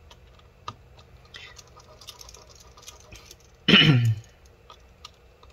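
Faint ticks and scratches of a small pentalobe screwdriver working tiny laptop screws. About two-thirds of the way in, the person working makes one short throat noise, falling in pitch. It is the loudest sound here.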